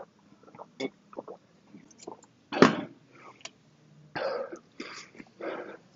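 A man coughing, clearing his throat and exhaling hard as he catches his breath after a set of kettlebell swings. There is a loud cough about two and a half seconds in and several rougher bursts near the end, with a few small clicks near the start.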